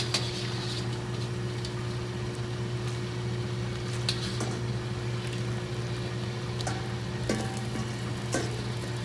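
Stockpot of lemongrass broth steaming on the boil under a steady low kitchen hum. A few light clicks of a metal mesh strainer against the steel pot come as the lemongrass is scooped out.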